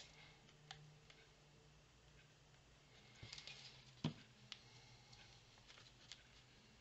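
Near silence with faint rustles and light taps of paper and small craft supplies being handled on a table, one sharper tap about four seconds in, over a faint low hum.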